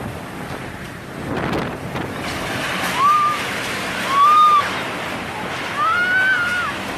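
Typhoon storm noise: a steady rushing roar with a couple of swells early on. From about three seconds in, four short high wailing tones rise and fall over it, the loudest moments.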